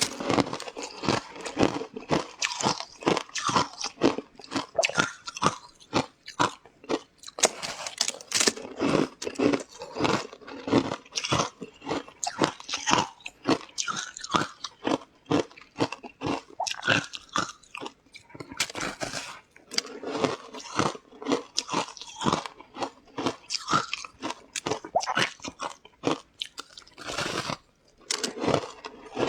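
Close-miked eating: a rapid, irregular run of crunchy bites and chewing on crisp food, several crunches a second.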